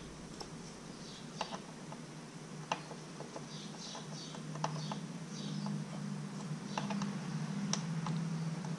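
Scattered small clicks and light taps from handling small carburetor parts, with some faint rustling. A low steady hum comes in about halfway through.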